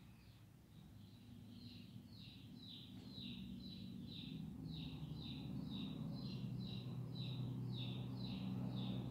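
A small bird chirping over and over, a steady series of short falling chirps about three a second. Under it runs a low hum that grows louder.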